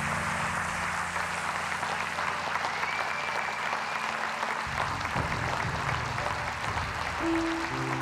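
Audience applauding, with background music underneath whose low notes change about five seconds in.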